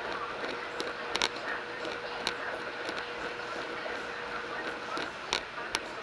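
Steady hum of running machinery with a faint held tone, broken by a few sharp clicks about a second in and near the end.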